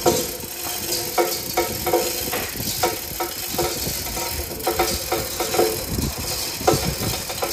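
Metal rigging clanking and chain rattling as a stack of ATV line-array speaker cabinets hangs on hoist chains and is handled. Sharp clanks come irregularly, roughly two a second, each ringing briefly.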